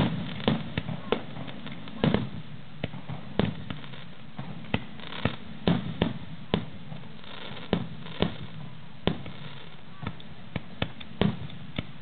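Aerial firework shells bursting in a star mine, a rapid-fire fireworks barrage: a dense, irregular run of sharp bangs, about two a second, each with an echoing tail over a low rumble.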